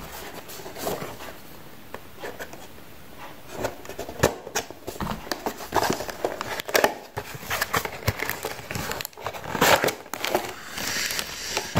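A cardboard toy box being opened by hand and a plastic bag of parts crinkling as it is pulled out: irregular rustles and clicks, quieter at first and busier from about four seconds in.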